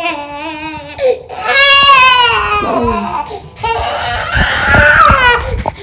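A toddler crying hard, in loud wavering wails that break off and start again.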